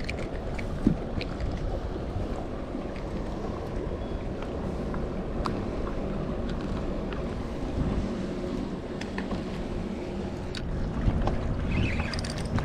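Wind rumbling on the microphone and water lapping around a fishing kayak, with scattered light clicks and knocks.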